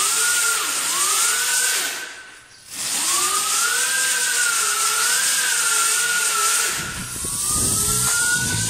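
Electric dirt bike's DA-90S induction motor whining as the throttle is worked: a high whine that sweeps up and down in pitch several times, with a steady hiss above it. Background music with a beat comes in near the end, under a rising whine.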